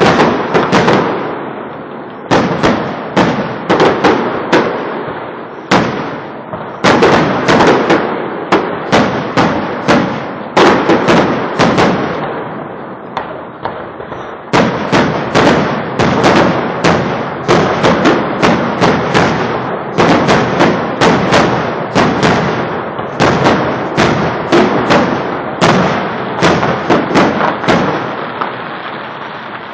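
Fireworks display: rapid volleys of sharp bangs and crackling bursts, several a second and each echoing briefly, with short lulls between volleys, thinning out near the end.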